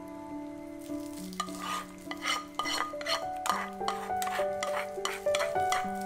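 A spoon stirring sugar in a glass measuring cup as melted browned butter is poured in: scraping strokes about three a second, starting about a second and a half in, over soft background music.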